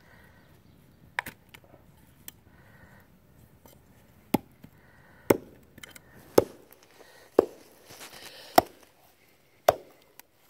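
Ka-Bar BK7 knife's tip being driven into a split log in a tip-strength test: a series of sharp woody knocks, about one a second, stopping near the end.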